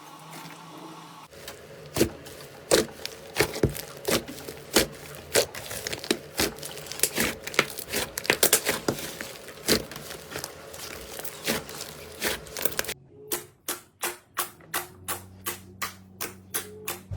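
Slime being squeezed and pressed by hand, making a dense run of crackling pops and clicks. Near the end this turns into a regular series of separate pops, about three a second.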